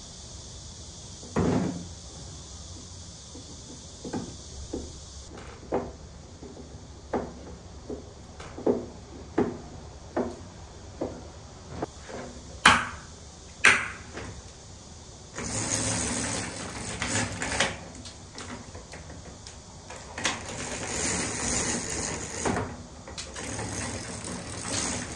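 Curtain being hung on a window rail: short plastic clicks about once a second as the hooks or runners go onto the track, two sharper ones near the middle, then the curtain fabric rustling and being pulled along the rail.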